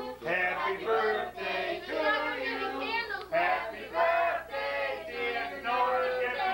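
A group of people singing together, adult and children's voices mixed.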